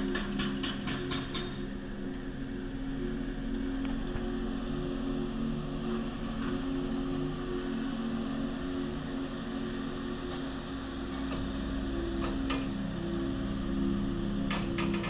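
Komatsu PC1250 excavator running steadily, a continuous low engine drone. A quick run of evenly spaced ticks sounds in the first second or so and again near the end.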